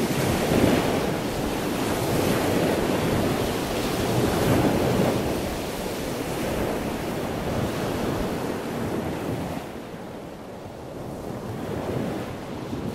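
Sea waves washing in, a rushing noise that swells and eases every few seconds, with a wind-like hiss; it turns quieter and duller near the end.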